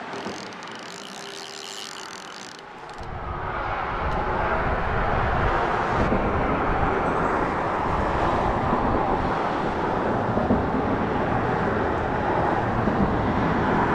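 Steady outdoor rush of wind on the microphone and road traffic on a highway bridge. It is quieter at first and grows louder about three seconds in.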